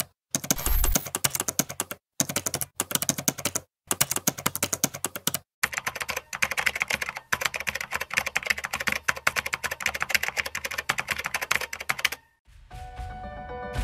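Typing on a computer keyboard: rapid clattering keystrokes in several bursts, each cut off by a brief silence, then a long unbroken run of fast typing. Music starts near the end.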